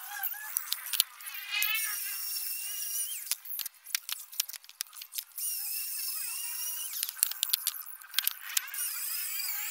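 Plywood panels and wooden boards knocking and sliding against each other as they are handled, with many short sharp knocks, and a high steady whine at times, clearest from about six seconds in until just past eight.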